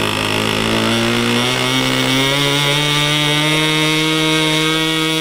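Small model airplane engine running on the ground. It speeds up over the first few seconds, pitch rising, then holds steady at the higher speed.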